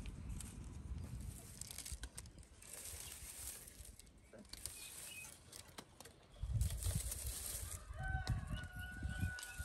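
Chickens clucking around the nest boxes, and near the end a rooster crowing in one long held note.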